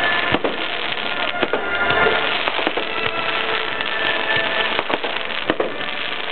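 Fireworks display: continuous hissing and crackling of ground fountain fireworks, with several sharp bangs of bursting shells.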